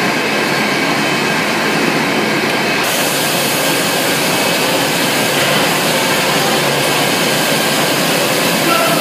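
Steady, loud machinery noise of a poultry processing plant. About three seconds in it turns to a brighter, hissier din as the scene changes to a chicken-feet scalding machine running.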